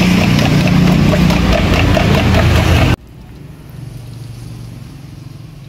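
A motor running steadily, loud with a low hum, cut off abruptly about three seconds in, leaving only a faint low hum.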